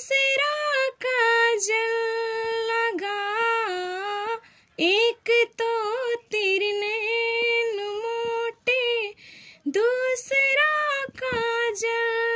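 A woman singing a Krishna bhajan solo and unaccompanied, holding long notes that glide up and down between phrases, with short pauses for breath.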